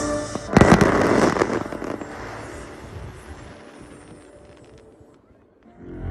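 A loud volley of firework bangs about half a second in, followed by crackling that fades away over several seconds. Music from the display's soundtrack starts again near the end.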